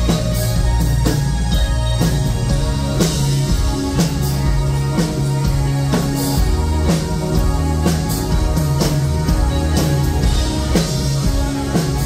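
New wave band playing live through a PA system: a drum kit keeping a steady beat under electric guitar and synthesizer keyboard.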